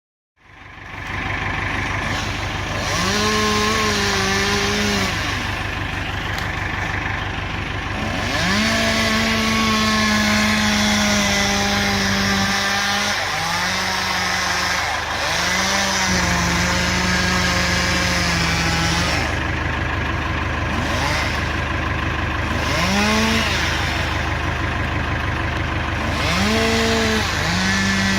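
Chainsaw revving, repeatedly pulled up to a high steady pitch and held for a few seconds before dropping back, over the steady rumble of another engine idling.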